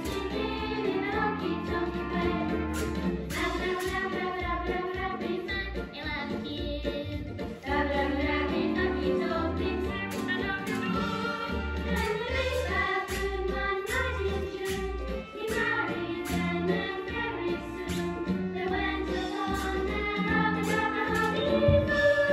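A song playing: voices singing a bright, children's-style tune over a steady beat.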